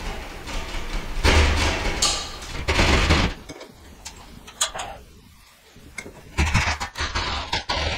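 DEWALT hand jab saw cutting through a drywall ceiling in rasping back-and-forth strokes. The sawing stops for about three seconds midway, with a few light clicks, then starts again in quicker strokes near the end.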